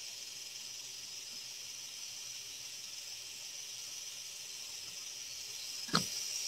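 Steady high-pitched hiss with no speech: the background noise of a phone live-stream's microphone, with a brief faint click about six seconds in.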